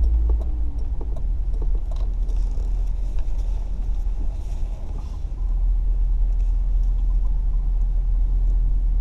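Car engine and road rumble heard inside the cabin as the car is driven into a parking spot, low and steady, with a few light clicks. It gets a little louder about five and a half seconds in.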